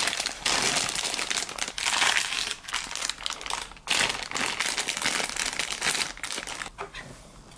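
Plastic packaging of a boxed anime figure crinkling and rustling as hands unwrap it, in quick irregular crackles that die away near the end.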